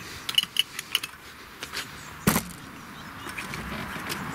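Small clicks and light taps of hands handling a boxed model train set and its plastic box insert, with one sharper knock a little over two seconds in. A faint hiss grows in near the end.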